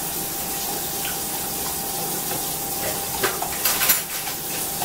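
Kitchen tap running steadily into the sink, a continuous hiss of water, with a few sharp clinks and clatters about three to four seconds in.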